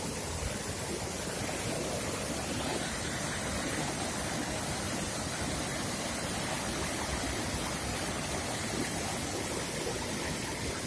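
Waterfall: a steady rush of falling water, with some wind on the microphone.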